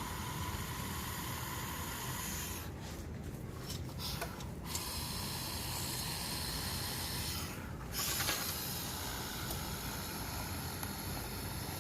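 Steady hiss with faint rubbing and scraping as old adhesive is cleaned off a smartphone's cover glass; the higher part of the hiss drops out briefly twice.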